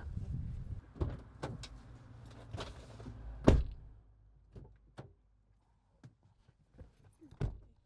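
Car door being opened and shut as a passenger gets in: a handful of clicks and knocks, the loudest a heavy thud about three and a half seconds in and another near the end.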